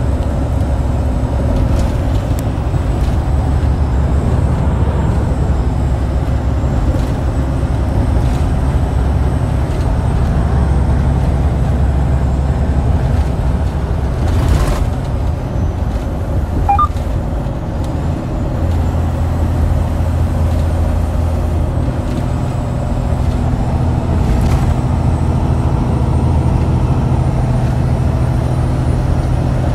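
Steady low drone of a semi-truck's diesel engine and road noise, heard from inside the cab at highway speed, with a couple of brief knocks.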